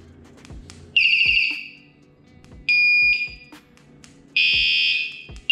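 Scooter anti-theft alarm sounding three short, high electronic tone blasts, each about half a second and each a different pattern, as its remote switches through the alarm's selectable sounds.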